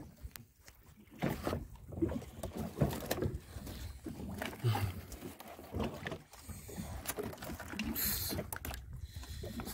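Water and wind noise around a small wooden fishing boat, with scattered knocks and rubbing as a hand line carrying several snappers is hauled up over the gunwale.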